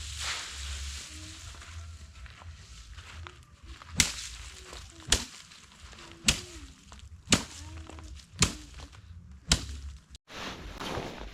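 Six sharp strikes, about one a second, over low background rustling.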